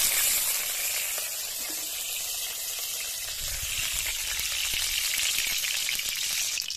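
Hot oil sizzling in a kadai with a steady high hiss, heated and ready for frying potatoes.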